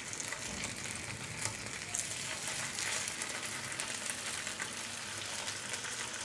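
Chicken breast pieces sizzling steadily in garlic butter in a non-stick frying pan over a low-to-medium flame, with fine crackling throughout. Metal tongs turn and shift the pieces in the pan.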